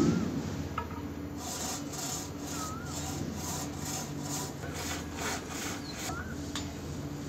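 Wood being sawn by hand: a run of rasping strokes, about two to three a second, starting a second and a half in and stopping about six seconds in. Under it runs a steady low hum, with a few short bird chirps.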